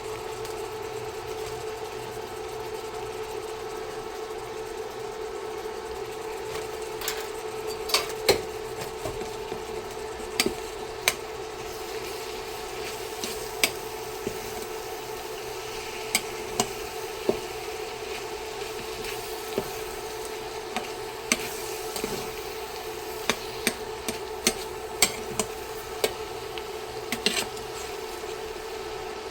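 Spoon stirring a pan of tomato-based sloppy joe sauce, with scattered sharp knocks of the spoon against the pan that come more often in the second half, over a steady hum.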